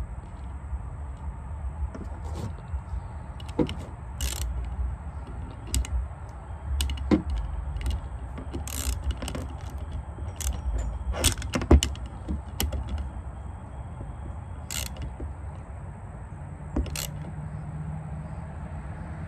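Irregular metallic clicks and knocks from hand tools and metal parts being handled during work on a lawn mower starter, over a low rumble. The sharpest knock comes a little past the middle.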